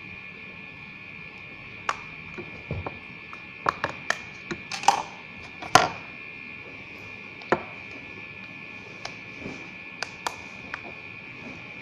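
Sharp plastic clicks and taps from handling a smartphone and its snap-on plastic back cover, a quick cluster of them in the first half, then a few scattered ones.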